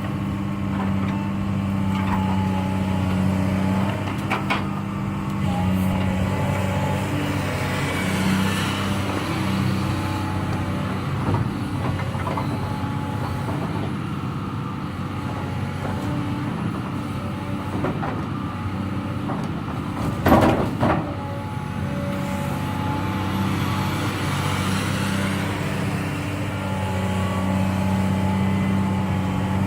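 Heavy diesel excavator running steadily at work, its engine swelling and easing in places. A few sharp knocks come through, the loudest about two-thirds of the way in.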